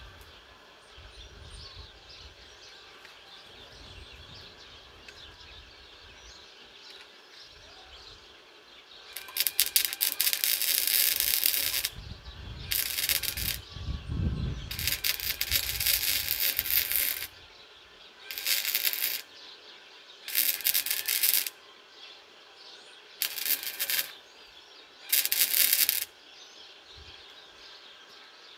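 Titanium Easy-Flux 125 flux-core wire-feed welder arc crackling in about seven short welds. The first starts about nine seconds in and is the longest at about three seconds; the others each last a second or less, and the last stops a couple of seconds before the end.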